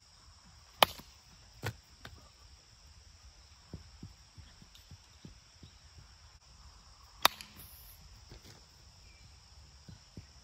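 Sharp cracks of a plastic wiffle ball bat hitting a wiffle ball: a loud one about a second in and another about seven seconds in, with a lesser knock just after the first. Under them, a steady hum of insects.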